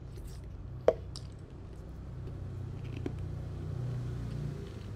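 Low steady background hum, with one sharp click about a second in and a fainter click near three seconds.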